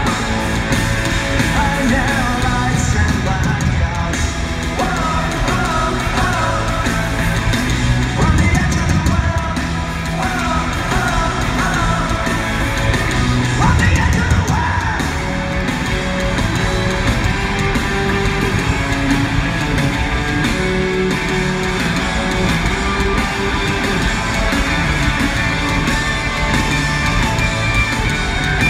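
Punk rock band playing live in an arena: electric guitars and drums with singing, at a steady loud level.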